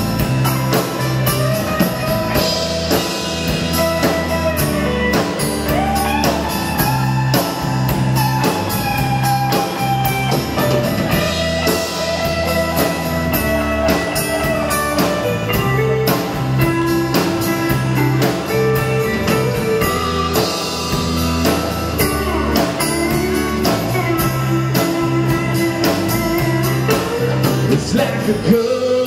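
Live country-rock band playing an instrumental passage: electric and acoustic guitars, bass guitar and a drum kit. A lead melody line runs over a steady beat.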